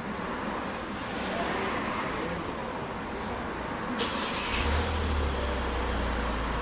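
Kia Sorento starting on its remote starter: a sharp click about four seconds in, a brief crank, then the engine catches and settles into a steady idle.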